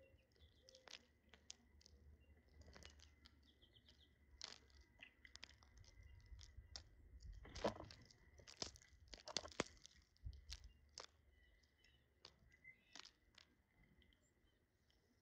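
Birds pecking and crunching at food: a scatter of faint, sharp clicks that get busier about halfway through, with a few soft chirps.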